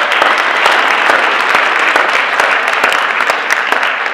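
Audience applauding loudly: dense, steady clapping from a large crowd.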